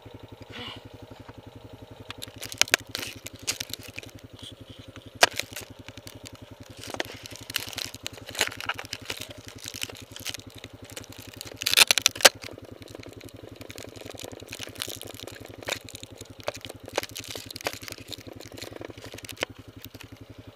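Honda TRX420 quad's single-cylinder four-stroke engine idling steadily at standstill, with irregular crackles and clicks on top, the loudest cluster about twelve seconds in.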